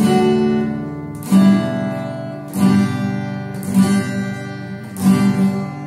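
Steel-string acoustic guitar strumming chords slowly, four strums about a second and a quarter apart, each chord left ringing until the next.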